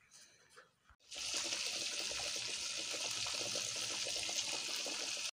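Fish pieces deep-frying in a pan of hot oil: a steady, loud sizzle with fine crackling that starts suddenly about a second in and stops near the end.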